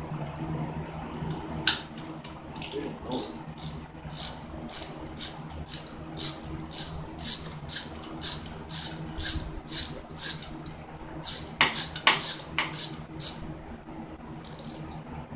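Hand ratchet wrench clicking in short bursts, about two strokes a second, as it is worked back and forth to back out a bolt, with a couple of louder clicks near the end.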